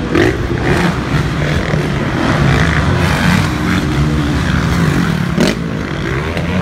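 Several motocross dirt bikes' engines revving and backing off as they race, their pitch rising and falling, with more than one engine heard at once.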